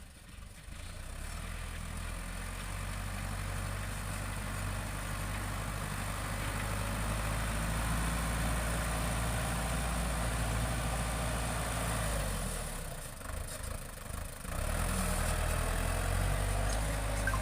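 Engine of a heavy farm machine running steadily with a low drone. It drops away briefly about twelve seconds in, then comes back.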